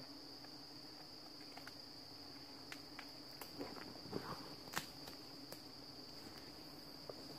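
A steady high-pitched insect trill, over a low hum of wasps flying near their nest that fades after about three seconds. From about three to five and a half seconds in come a few sharp snaps and rustles of twigs and leaves, the loudest about five seconds in, as gloved hands pull at the brush.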